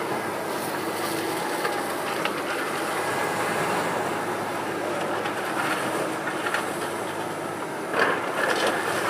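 Factory demolition in progress: a steady clatter and scraping of metal and rubble being worked by heavy machinery, with a louder knock about eight seconds in.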